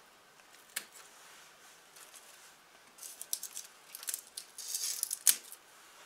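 Kitchen scissors snipping: a sharp snip about a second in and a louder one near the end, with crinkly rustling of a plastic bag and a mesh net in between.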